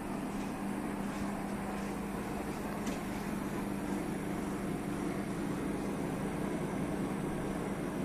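Hermetic refrigeration compressor of a single-stage vapour-compression unit running with a steady hum.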